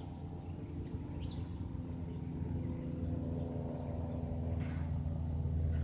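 Cessna light aircraft's propeller engine running overhead: a steady hum of several tones that grows gradually louder. A faint bird chirp comes about a second in.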